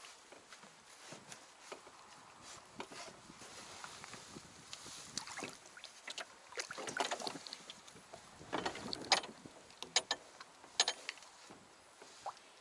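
Irregular light knocks and clicks of handling in a small wooden-sounding rowboat, with a cluster of sharper, louder clicks about two-thirds of the way in.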